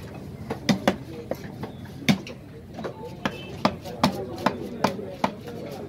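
Large knife chopping through a mahi-mahi fillet onto a wooden chopping block: a series of sharp chops, coming steadily about two or three a second in the second half.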